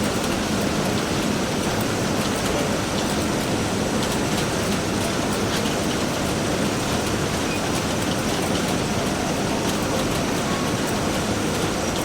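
Construction-site ambience: a steady, dense wash of machinery noise with faint scattered knocks and clicks.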